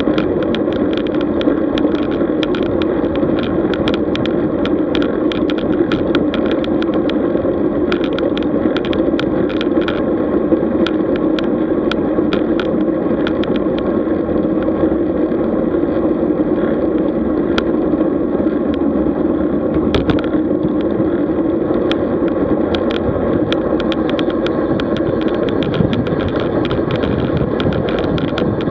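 Road bike in motion: steady wind and road noise on the riding camera's microphone, with frequent small clicks and rattles.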